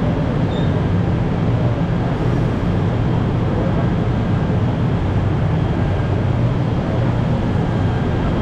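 KTM Komuter electric commuter train at a station platform: a steady low rumble and hum that holds even throughout.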